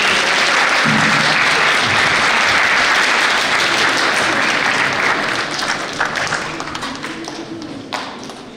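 Audience applauding, loud and steady for about five seconds and then dying away.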